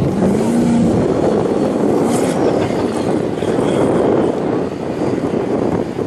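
Formula Offroad hillclimb car's engine running hard at high revs, its pitch rising briefly about half a second in, under a dense rushing noise.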